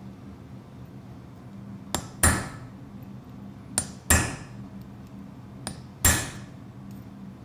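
Hand hammer striking a chisel to cut rune lines into a cold metal pendant: three blows about two seconds apart, each a light tap followed by a sharp, ringing metallic strike. A faint low hum lies underneath.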